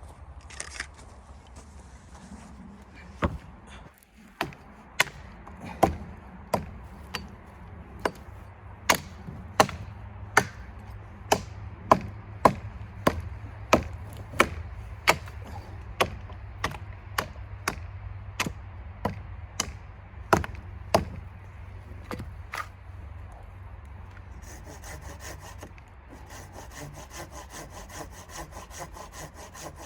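Sharp strikes on wood, about one and a half a second for some twenty seconds, then a hand saw starting to cut wood with a quick back-and-forth rasp near the end.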